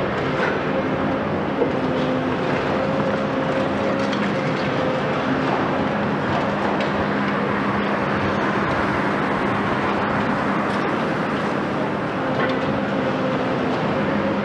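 Volvo EC 700 B demolition excavator's 16-litre six-cylinder diesel engine and hydraulics running steadily, with a steady hum through the noise. A single sharp knock sounds about a second and a half in.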